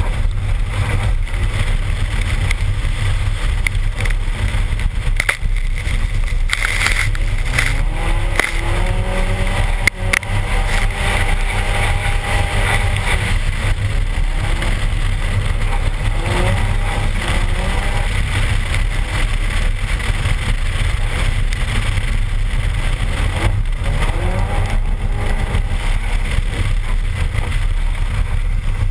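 Wind buffeting a car-mounted microphone over the turbocharged 3S-GTE four-cylinder engine of a Toyota RAV4, its revs rising and falling several times as it drives through slush. A brief thump about ten seconds in.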